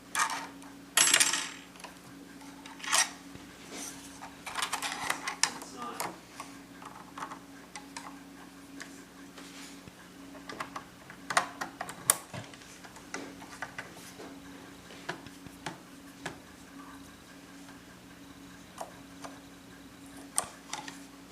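Irregular light metallic clicks and clatter from a Singer Merritt sewing machine's parts being handled and worked, with a steady low hum underneath.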